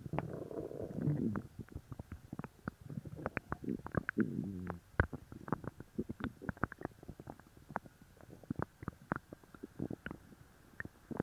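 A person's stomach and gut growling and gurgling as a laxative takes effect. There is a rumbling growl at the start and another around four seconds in, with many short clicks and pops throughout.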